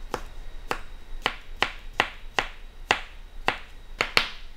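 A cook's knife dicing cucumber on a thin, flexible cutting board: a steady run of sharp knocks, two or three a second, as the blade strikes the board.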